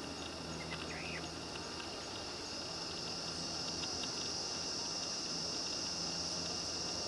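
A steady, high-pitched insect chorus that grows a little louder partway through, with a brief faint chirp about a second in.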